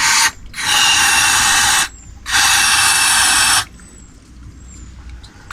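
Aerosol carb cleaner spraying into the Yamaha Virago 535's carburettors in long hissing bursts, two of about a second and a half each, as the carbs are cleaned out.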